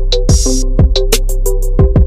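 Background music: a beat-driven track with repeated drum hits, sharp high percussion, held mid-range notes and a constant deep bass.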